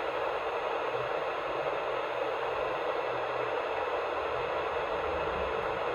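CB radio receiver on single-sideband giving steady static hiss with no station coming through: the distant signals have faded out.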